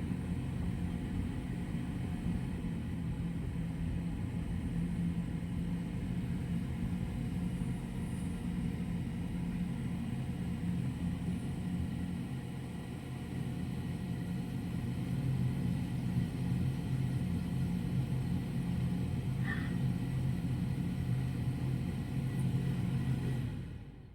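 Car engine and road noise heard from inside the moving vehicle: a steady low hum and rumble that drops away sharply near the end.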